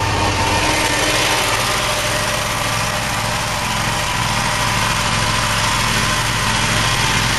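Scag Cheetah commercial zero-turn mower's engine running steadily at a constant pitch as the mower cuts into tall, thick grass.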